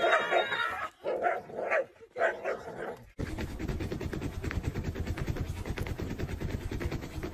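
A dog barking and growling in short bursts for about three seconds. It then cuts abruptly to a fast, steady rhythm of soft rustling strokes.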